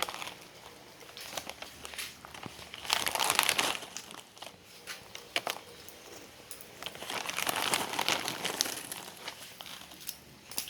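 Plastic snack wrapper being crinkled and handled in two longer bouts, one about three seconds in and one about seven seconds in, with scattered crackles between.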